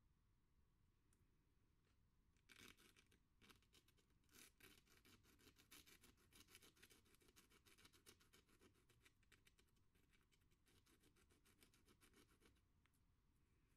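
A nail scratching rapid, short strokes into 180-grit sandpaper to scribe road markings. The faint scratching starts about two and a half seconds in and stops about a second before the end.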